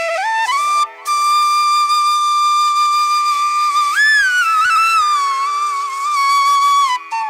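Background music: a flute melody of mostly long held notes, with a short break about a second in and a note that swoops up and back down about four seconds in.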